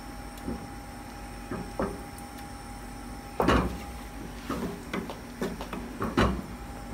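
Wooden spoon knocking against the sides of a stainless steel pot while stirring a thick cheese sauce. The knocks are faint and scattered at first, then louder and more frequent from about halfway.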